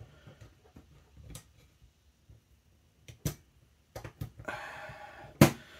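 Airsoft version 3 gearbox being closed, the top shell half rolled down onto the lower half: a few light clicks, a short scrape of the halves sliding together, and a sharp click near the end.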